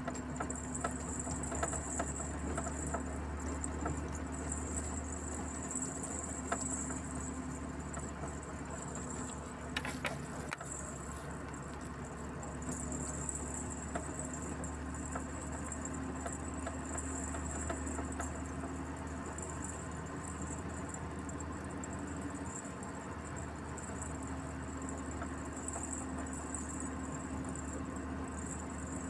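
Steady low drone of a vehicle's engine and tyres driving along a road, heard from inside the vehicle, with a high hiss that swells and fades and a brief click about ten seconds in.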